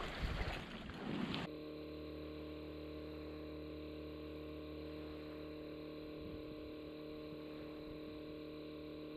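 Wind buffeting the microphone, which cuts out abruptly about a second and a half in. A quiet, steady electrical hum made of several even tones takes its place.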